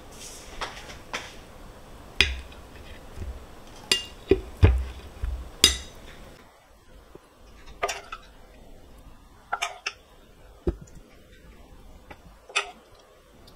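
Dishes, glassware and utensils being handled: about a dozen separate clinks and knocks, scattered irregularly.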